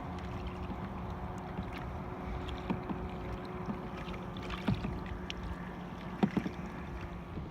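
Kayak being paddled: water splashing and sloshing around the paddle and hull, with a few sharp splashes or knocks about three, five and six seconds in, over a faint steady low hum.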